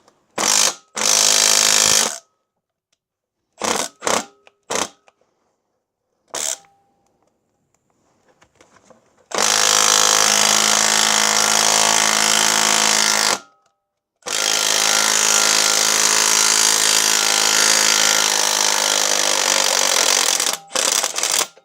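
Milwaukee M12 Stubby 3/8-inch cordless impact wrench hammering on a seized, rusted suspension bolt. It starts with several short bursts, then hammers in two long runs of about four and six seconds. The tool is struggling to break the badly rusted bolt loose.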